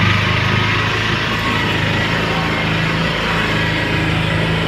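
Auto-rickshaw engine running steadily as it drives, heard from inside the passenger cabin.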